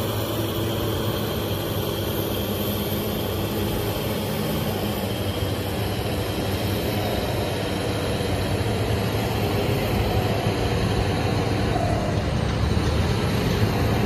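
Heavy diesel earthmoving machines, a BEML BE1000 hydraulic excavator and a bulldozer, running steadily with a low engine drone that grows a little louder near the end.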